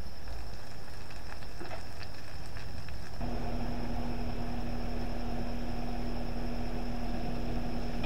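Steady outdoor rumble with a faint high whine and a few faint ticks. About three seconds in, a steady mechanical hum with a low drone starts and holds.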